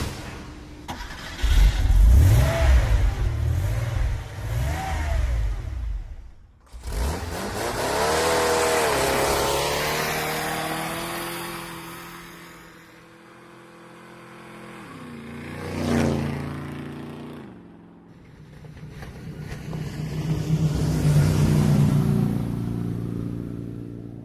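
A series of car engine sound effects: an engine revving, then a car approaching and speeding past, its engine pitch dropping as it goes by, then another engine rumble building up.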